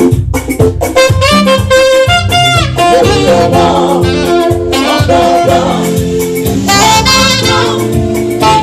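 Gospel praise music with a saxophone playing quick melodic runs and held notes over band accompaniment.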